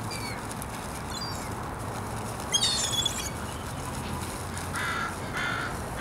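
Crows cawing, with a burst of high-pitched bird calls about halfway through and two short caws near the end, over a steady low background rumble.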